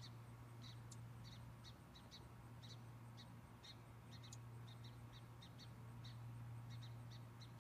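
A small songbird giving short, high chirps, about two or three a second, over a steady low hum.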